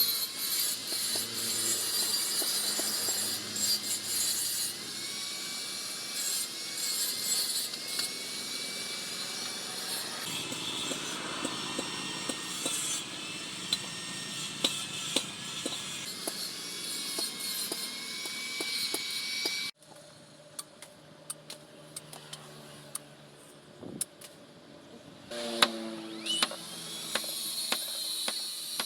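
Knife blade being sharpened: a steady rasping scrape of steel on an abrasive for about twenty seconds, which cuts off suddenly. Quieter scattered light clicks and taps follow.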